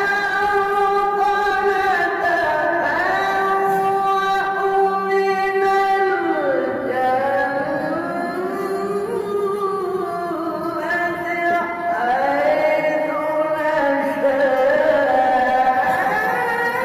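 A man's voice reciting the Qur'an in the melodic tilawah style, holding long ornamented notes that glide between pitches. The line drops lower about six seconds in and climbs back up around twelve seconds in.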